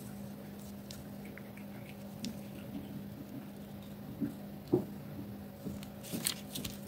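Thin metal nail-art tool stirring thick gel paint in a small plastic jar: faint scraping with soft taps and small clicks, one louder tap about three-quarters of the way through and quicker clicks near the end. A steady low hum runs underneath.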